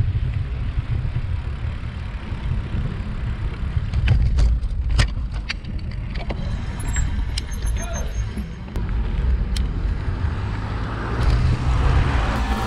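Wind noise rumbling on a bicycle-mounted camera's microphone while riding along a road with traffic. There are a few sharp knocks between about four and five and a half seconds in, and the tyre noise of a passing car swells near the end.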